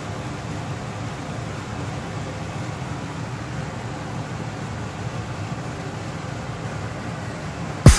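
Steady low rumbling kitchen background noise, with a sudden loud click near the end.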